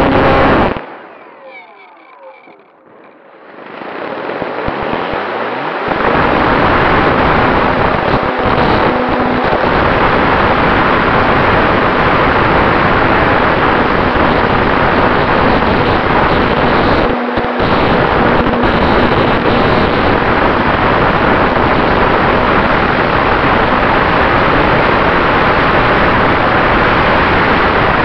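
Onboard sound of a radio-controlled Cessna 188 scale model in flight: its motor and propeller, with wind rushing past the fuselage-mounted camera. The noise falls away about a second in and builds back over the next few seconds. It then stays steady and loud, with one brief dip.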